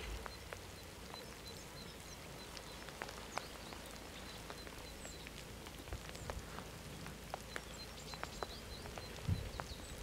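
Scattered raindrops ticking over faint steady background noise, with a few short, high bird chirps.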